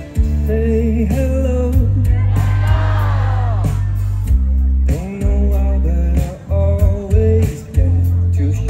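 A song playing: a singing voice over a steady bass line and accompanying instruments.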